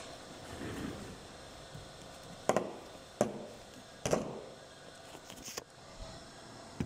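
A few sharp clicks and knocks, about four spread over several seconds, against quiet room noise.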